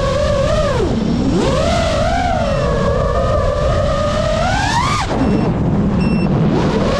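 FPV racing quadcopter's brushless motors and propellers whining, the pitch following the throttle: it dips low about a second in, climbs steadily to a high peak about five seconds in, drops abruptly as the throttle is chopped, and rises again near the end. A low rush of wind runs underneath.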